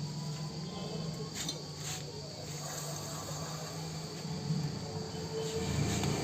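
Front disc brake of a Hero Passion Pro BS6 rubbing as the front wheel is spun by hand, a thin high-pitched scraping. The brake pads are worn right through, so their metal backing is rubbing on the disc.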